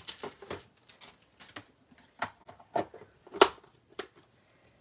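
Plastic stamping supplies and a cellophane bag being handled and put away on a craft mat: irregular light clicks, taps and rustles, with a sharper knock about three and a half seconds in.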